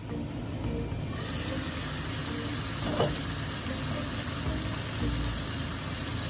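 Pork and squash pieces in a pot on a gas stove, sizzling steadily. The sizzle steps up about a second in, and there is one short knock near the middle.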